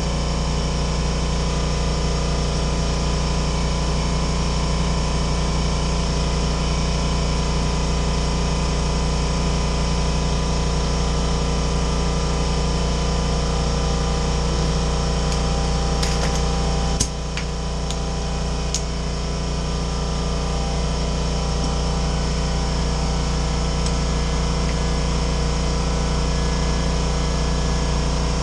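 A steady low mechanical hum, like a running fan or compressor motor, continues throughout. About 16 to 19 seconds in, a few sharp clicks come, and the hum briefly drops in level.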